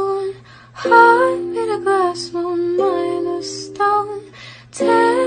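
Music: a song with a wordless vocal line, humming or vocalising phrases that glide between notes over sustained backing tones.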